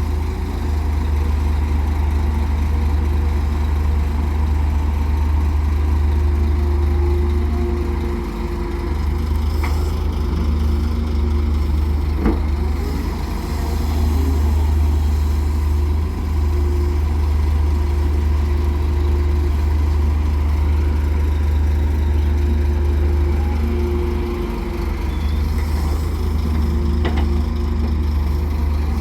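Heavy diesel engine of an excavator running steadily under load, a deep drone with short dips and faint higher tones that come and go. A few sharp knocks, the loudest about twelve seconds in.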